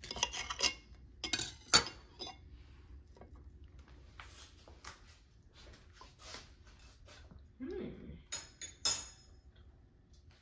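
Steel knife and fork scraping and clinking against a plate as a sausage is cut, with several sharp clinks in the first two seconds. Faint clicks follow, then a few more clinks near the end.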